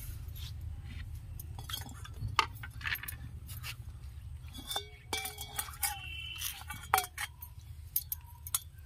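Scattered light clinks and taps of a plate, steel bowls and glass bangles while freshly ground spice paste is scraped off a stone grinding slab. A few short ringing clinks come a little past the middle, over a steady low rumble.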